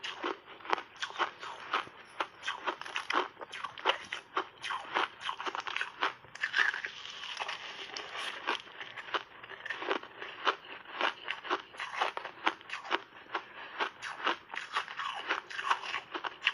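Close-miked crunching of a packed snow-ice block, its end soaked in berry juice, being bitten and chewed: a run of quick, irregular crisp crunches, a few each second.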